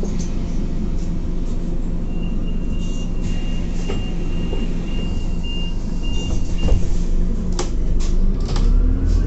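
Scania Citywide CNG city bus heard from inside the cabin: a steady low engine hum, with a thin high beeping tone sounding for a few seconds in the middle. Near the end come a few sharp knocks, and the engine's low rumble grows louder.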